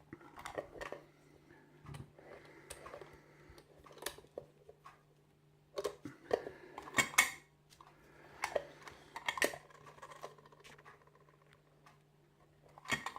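Lock-picking tools and a small aluminium padlock being handled: scattered clicks and clinks of metal on metal, with a louder cluster about six to seven seconds in.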